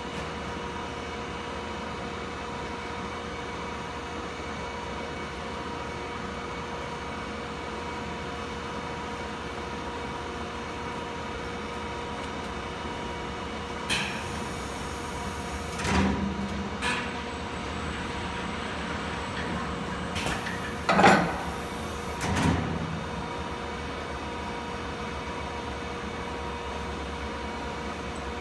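Thermoforming machine running with a steady hum. It is broken around the middle by a few short hissing air bursts and thuds as the machine cycles.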